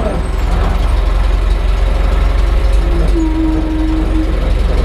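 A 1929 Mack AK dump truck's four-cylinder gasoline engine (5-inch bore, 6-inch stroke) running with a steady low rumble. About three seconds in, a steady whine sounds for roughly a second.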